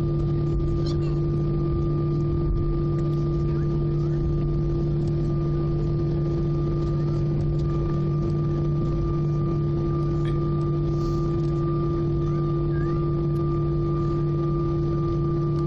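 Steady cabin drone of an Airbus A319-111 taxiing after landing, heard from inside the cabin: its CFM56 engines are running at idle, a continuous hum with a few held tones.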